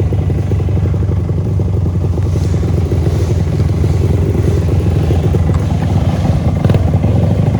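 Trail motorcycle engine running steadily at low revs over rough ground, with occasional clattering knocks.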